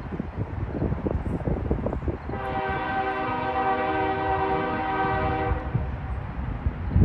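Locomotive air horn sounding one steady chord for about three seconds over the continuous low rumble of a passing freight train. A heavy low bump comes at the very end.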